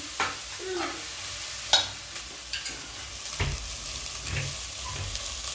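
Sliced sausage frying in a pan, sizzling steadily, while a utensil stirs it and clicks against the pan a few times.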